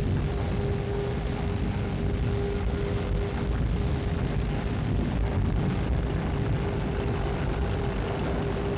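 Heavy winch machinery running steadily while hauling the load: a constant low rumble with a steady mid-pitched hum.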